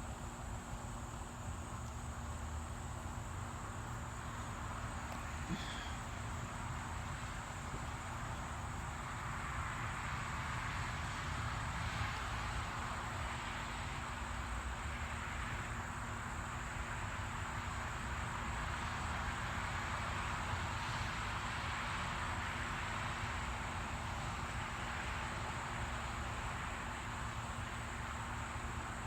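Steady chorus of night insects, a constant high buzz over a dense hiss that grows slightly louder partway through.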